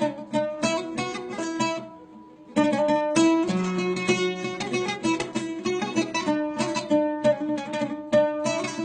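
Instrumental folk music: a plucked string instrument playing quick runs of notes, dropping away briefly about two seconds in and then coming back in.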